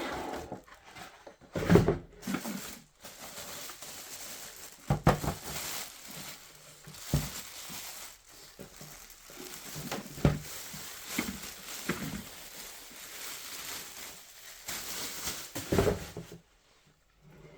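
Handling sounds from a drip coffee machine's plastic parts: about six separate knocks and clatters with crinkling and rustling between them. The sound cuts off suddenly near the end.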